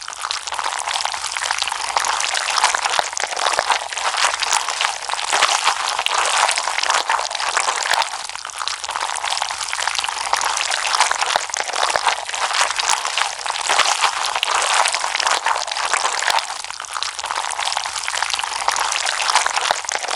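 Slime being squished and played with: a continuous wet crackling of many small pops and clicks.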